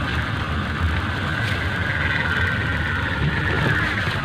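Kite hummer (sowangan) droning in the wind: a sustained humming tone that wavers slowly in pitch, over wind rumbling on the microphone.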